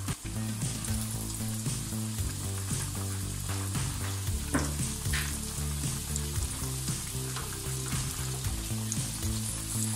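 Oats-coated chicken pieces deep-frying in hot oil in a metal pan: a steady, dense crackling sizzle as fresh pieces are slipped into the oil, with a few sharper pops along the way.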